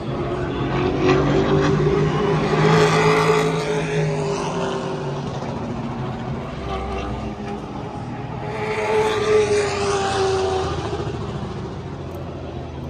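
Race car engines, a steady drone with two loud swells as cars run past, about three seconds and nine seconds in.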